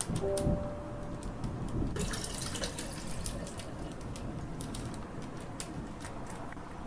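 Water poured from a plastic bag into a tall glass vase already holding water, splashing and bubbling, loudest about two seconds in, with small crackles throughout.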